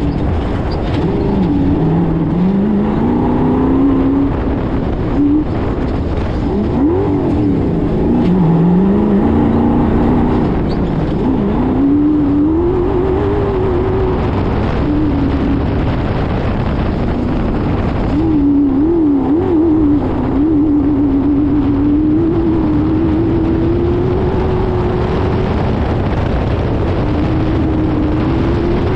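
Off-road race car engine at full load, its pitch climbing and dropping again and again as the driver accelerates, shifts and lifts off along a dirt track, over a steady rush of wind and road noise.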